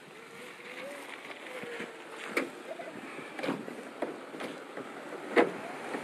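Steady rushing outdoor noise like wind or distant traffic, with a faint wavering tone in the first couple of seconds and four sharp knocks spread about a second apart through the second half.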